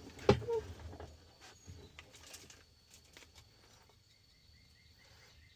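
A sharp click and a few light knocks, then from about four seconds in a faint, rapid string of short high electronic pips while a new key is being programmed.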